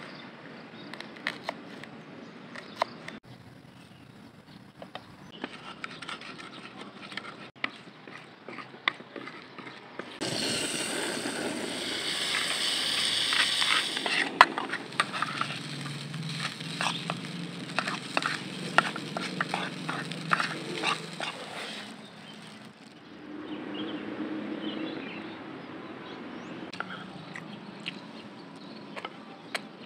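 A run of cooking sounds: a knife chopping shallots on a wooden board in sharp knocks, then a louder stretch of sizzling in a small pan on a portable gas stove about ten seconds in, then a metal spoon scraping and tapping as fried rice is stirred, and near the end a spoon scraping a plate.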